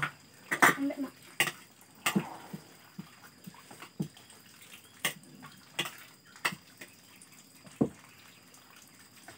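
Spoons tapping and scraping against plates and bowls as people eat, a sharp clink roughly once a second at irregular intervals.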